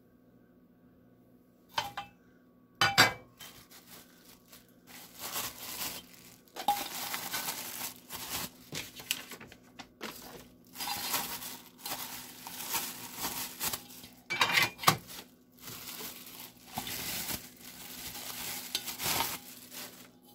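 Clear plastic bags crinkling and rustling as metal tortilla bowl pans are unwrapped, with a few sharp knocks of the pans. Two knocks come first, then the rustling starts about four seconds in and continues in uneven bursts.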